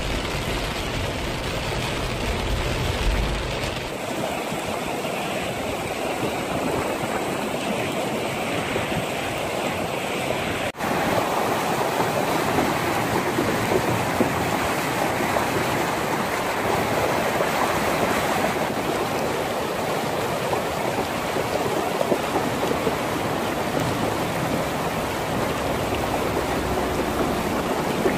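Muddy flash-flood water rushing steadily, pouring out of a concrete culvert and running over a stony valley floor. For the first few seconds, rain and a car's low rumble heard from inside a moving car.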